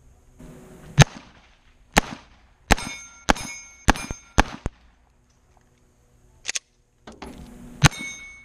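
A string of about nine pistol shots fired at steel plates. Most are followed by the ringing clang of a hit plate. The shots come roughly every half second to a second, with a pause of about two seconds near the middle.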